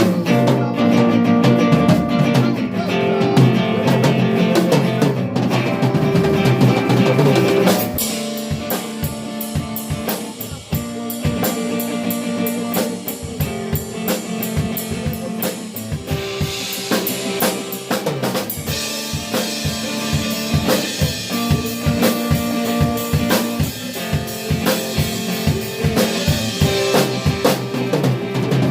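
Live band playing instrumental music for a sound check. Guitar and other sustained instruments play at first, then a drum kit comes in about eight seconds in with a steady beat.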